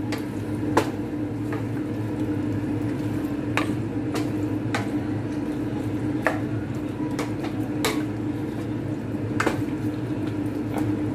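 Pork pieces in tomato-paste sauce frying in a stainless steel pan, stirred with a spatula that clinks against the pan every second or so, over a steady low hum.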